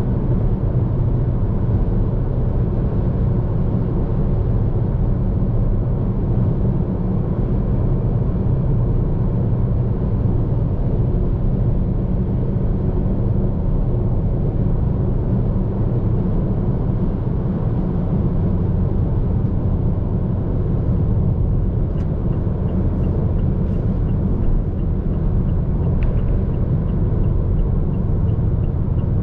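Steady low rumble of a car cruising at highway speed, heard from inside the cabin: road and tyre noise with the engine underneath. Faint, rapid, evenly spaced ticking joins in over the last several seconds.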